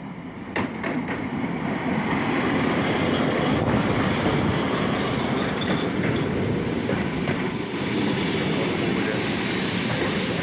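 Train passing close by, a steady loud rumble of wheels on the rails that builds up in the first two seconds, with a brief high wheel squeal about seven seconds in.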